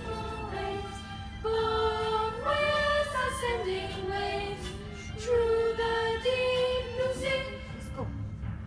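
Voices singing a slow melody in long held notes that step up and down in pitch, with no words made out.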